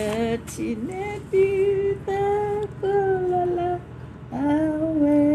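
A woman singing a slow tune in long held notes, with a short pause about four seconds in.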